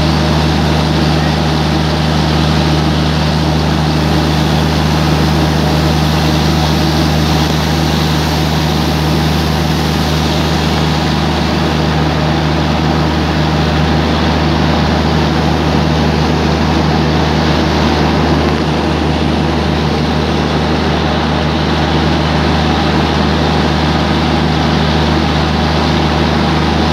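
Steady low drone of a railway locomotive at the station, unchanging in pitch, over an even hiss of rain.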